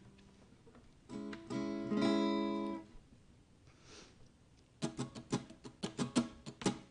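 Acoustic guitar: one strummed chord rings out for about two seconds, then after a short pause a quick, steady strumming pattern starts about five seconds in, opening the song.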